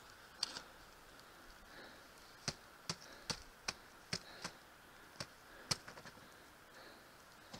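Ice axe and crampons striking frozen snow and rock: a string of about nine sharp, irregular taps, most of them between two and six seconds in.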